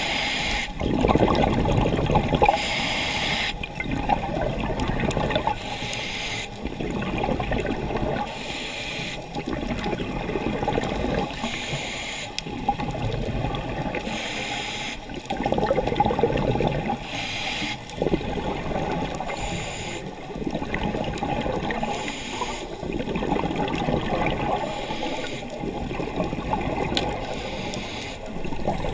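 Scuba diver breathing underwater through a regulator: a short hiss of inhalation about every two and a half to three seconds, alternating with the bubbling rush of exhaled air.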